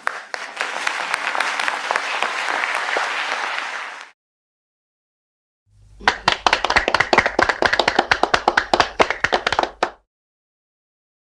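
Two separate bursts of small-audience applause. The first is a dense, even patter of many hands that cuts off abruptly about four seconds in. After a second and a half of silence comes a sparser burst with sharper, more distinct individual claps, which runs about four seconds and then stops.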